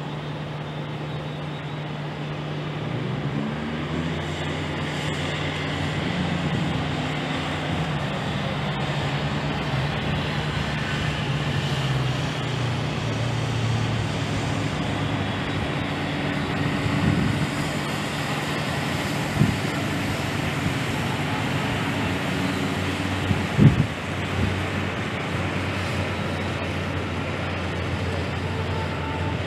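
Street traffic noise: a steady low engine hum and passing vehicles on the road, with a few short, louder engine revs in the second half.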